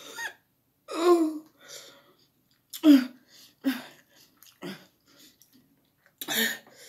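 A person's short pained groans and sharp breaths in a string of separate bursts, a reaction to the burning heat of very spicy noodles.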